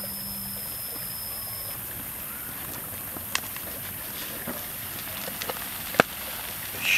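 Steady sizzling hiss from an omelet cooking in a lidded pan over a wood fire, with a few sharp crackles; the loudest crack comes about six seconds in.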